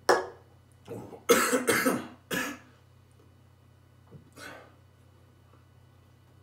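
A man coughing and clearing his throat: one sharp cough at the start, a quick run of three coughs a little over a second in, and a softer one past the four-second mark.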